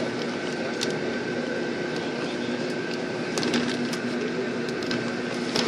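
Inside a moving bus: steady engine hum and road noise, with scattered light clicks and rattles.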